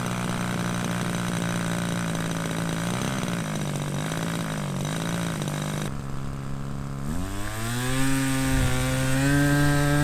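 Small single-cylinder engine of a high-wing RC model plane running at a low, steady idle, wavering briefly about three seconds in. About seven seconds in it is throttled up, its pitch rising and settling at a higher, louder run.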